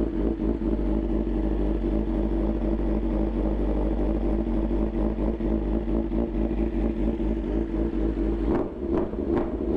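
Inline-four sport bike engine idling steadily through a freshly fitted aftermarket full exhaust system, running loud with no silencer insert. Near the end the low rumble drops away briefly and a few short knocks are heard.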